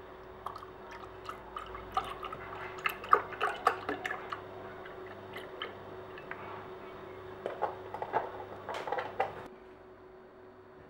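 Irregular small taps and clicks, clustered in a few runs, over a faint steady hum; the tapping stops about nine and a half seconds in.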